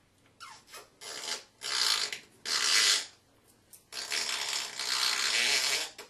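African grey parrot making raspy, hissing noises: a few short ones, then one long hiss of about two seconds near the end.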